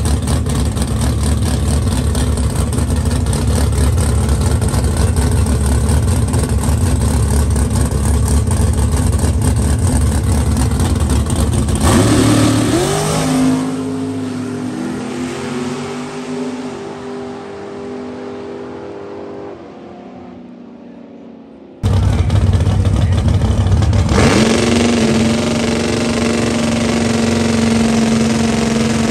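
Racing cars' engines at a drag strip. A loud, dense engine noise runs for about twelve seconds, then an engine revs up and its note climbs in steps and fades as the car pulls away. After a sudden cut another engine is loud, and its note climbs again a couple of seconds later.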